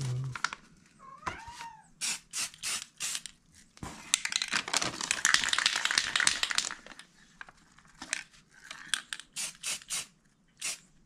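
Krylon aerosol spray paint can hissing in one continuous burst of about three seconds as paint is sprayed through a paper stencil. Before and after it come runs of quick, sharp clicks.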